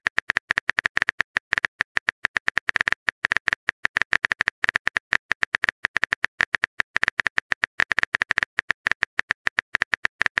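Simulated phone-keyboard typing clicks from a texting-story app: rapid, uneven taps, about ten a second, as a message is typed out.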